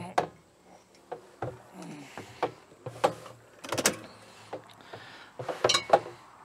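A cut-down barrel being moved and set in place: irregular knocks and clatters with a short scrape, the loudest clatter coming about four seconds in and again near the end.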